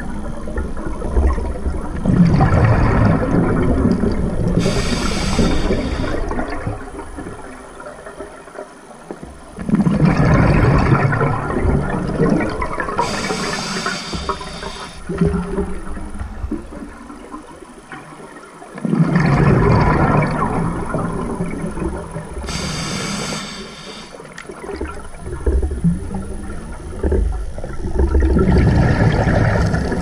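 Scuba diver breathing through a regulator underwater: slow breaths about every nine seconds, each a long burst of bubbling exhaust on the exhale that starts suddenly and fades, followed by a short hiss of the regulator on the inhale.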